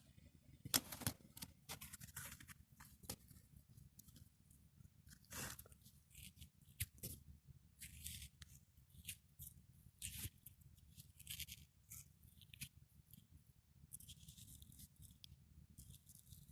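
Faint, irregular clicks, scrapes and rustles of hands working on a car's front suspension.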